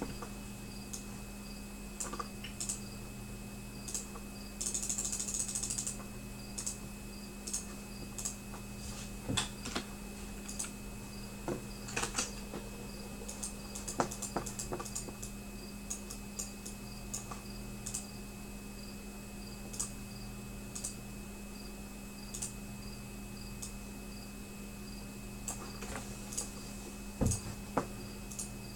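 Sparse light clicks and taps, with a short flurry of them about five seconds in, over a steady electrical hum. A faint high tick repeats about every two-thirds of a second.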